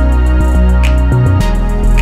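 Background music with a steady beat: fast repeating ticks, a stronger hit about once a second, and sustained low notes underneath.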